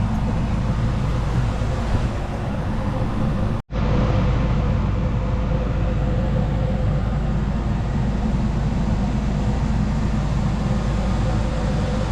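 Steady low rumble of a running engine, with a few faint steady tones over it; the sound cuts out abruptly for an instant about three and a half seconds in, then resumes unchanged.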